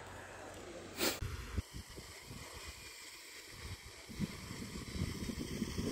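Wind buffeting the microphone in uneven low gusts outdoors, after a brief sharp noise about a second in.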